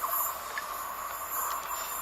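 Goods train hauled by twin WAG-5 electric locomotives running along the line: a steady rush of wheel and rail noise with a few faint clicks and no horn.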